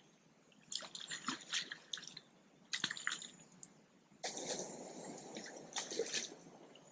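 Water splashing and dripping: two short bursts of crackly splashes, then a steadier rush of splashing water from about four seconds in.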